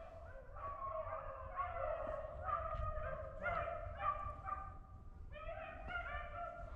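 A pack of beagles baying faintly, a string of drawn-out bawls about two a second, some overlapping, as the hounds run a rabbit's trail. A low rumble runs underneath.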